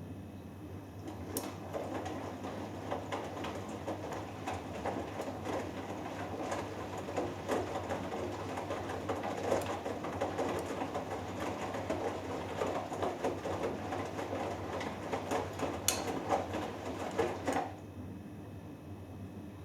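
Hoover Dynamic Next washing machine drum turning the wet cotton load, with water and clothes sloshing and pattering, over a steady low hum. It starts about a second in and stops sharply near the end, the usual turn-and-pause of the wash or rinse.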